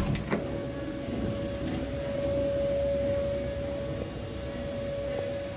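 A steady hum at one pitch over a low rumble, with a few sharp clicks right at the start.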